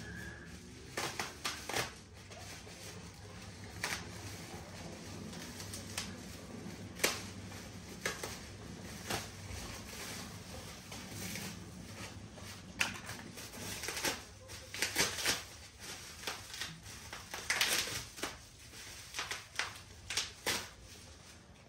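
Irregular clicks, taps and rustles of a new bicycle being unpacked, with its cardboard and plastic packaging and loose parts being handled.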